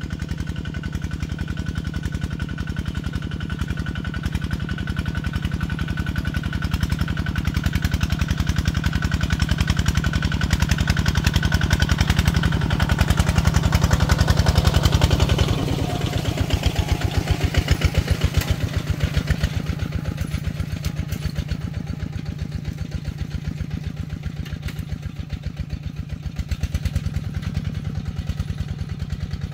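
Tractor engine running steadily, each firing pulse distinct over a low rumble. It builds louder until about halfway through, then drops back suddenly and carries on evenly.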